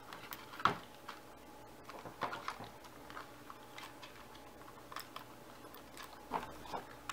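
Faint scattered clicks and rustles of hands handling a 3D-printed plastic wing panel while feeding a servo wire through it, with a sharper click a little under a second in.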